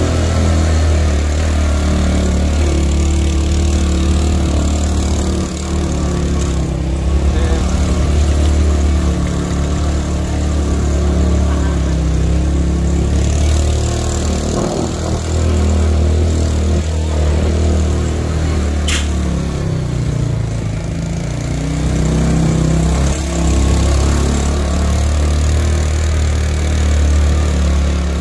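Small motorcycle engine running steadily as the bike is ridden along, heard up close from the pillion seat.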